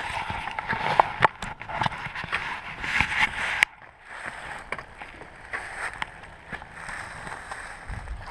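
Muffled rustling with scattered knocks and clicks of gear being handled close to the microphone; the sound drops off suddenly about three and a half seconds in, leaving a quieter hiss with occasional clicks.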